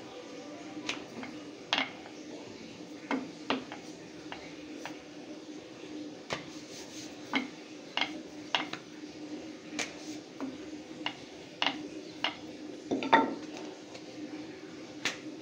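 Scattered sharp clicks and knocks of a wooden rolling pin and kitchen utensils against a wooden rolling board as roti dough is rolled out. A louder cluster of clinks comes near the end, over a steady low hum.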